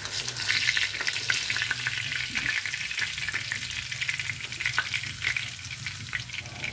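Pork chops frying in hot oil in a pan: a steady sizzle full of small crackling pops, loudest in the first couple of seconds.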